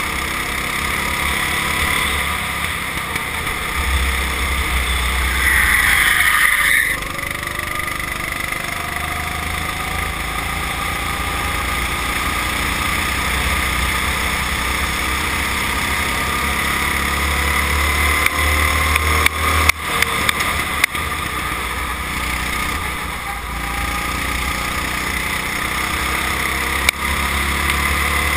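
Go-kart engine running hard under the driver, its pitch rising and falling as the kart brakes and accelerates through corners, with wind rumbling on the kart-mounted microphone. A few sharp knocks come near the end.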